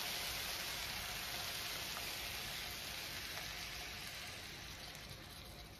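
Onions and codfish sizzling in a hot frying pan as cooking cream is poured in, the hiss slowly dying away as the cream covers the pan.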